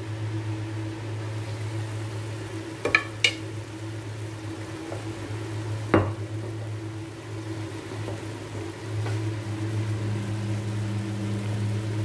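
Shrimp and vegetables cooking in a covered wok, a faint steady sizzle under a steady low hum. Three sharp clinks come about three seconds in and again at six seconds.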